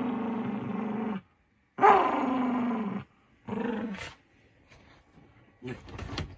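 Small dog growling in three long growls while mauling a stuffed toy bear, the second starting high and falling in pitch. Near the end come rustling and soft knocks as it shakes the toy about.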